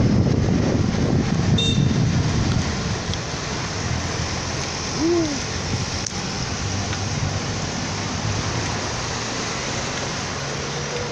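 Wind rushing over the microphone of a camera riding on a moving bicycle, mixed with the noise of street traffic; the buffeting is heaviest in the first couple of seconds. About five seconds in there is one short rising-then-falling tone.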